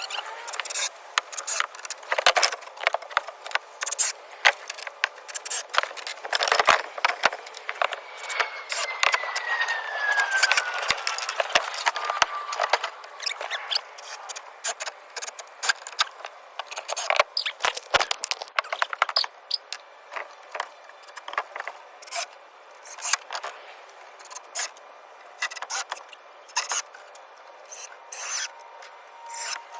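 Hands-on construction work with wood and tools: scattered clicks and knocks, wood scraping and rubbing, and one falling squeal about eight seconds in. A thin steady whine starts near the end.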